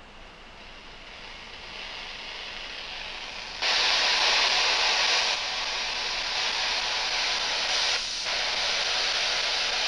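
Spirit box radio sweeping through stations, giving out a steady hiss of static. The static grows louder at first, jumps up sharply about three and a half seconds in, and eases a little a couple of seconds later.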